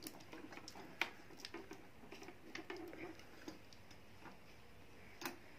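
Faint, scattered clicks and light taps of small plastic parts being handled on an electric fan's motor and oscillation gearbox, with a sharper click about a second in and another near the end.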